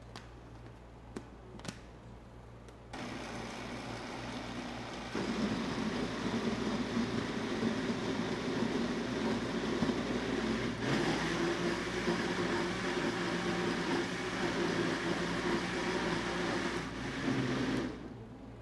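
Countertop blender puréeing cooked inhame (taro) with its cooking water into a cream soup. After a few light clicks as the lid is pressed on, the motor starts about three seconds in, steps up to a higher speed about two seconds later, settles into a steadier hum about halfway through, and cuts off near the end.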